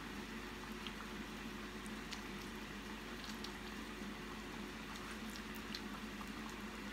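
Hot oil sizzling steadily in a saucepan of frying squash fritters, with small scattered pops, over a low steady hum.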